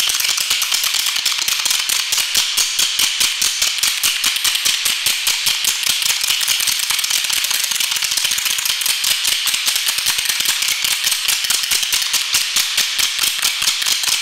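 Wooden spoons clacked together by a group of performers: a fast, continuous clatter of many knocks a second that does not let up.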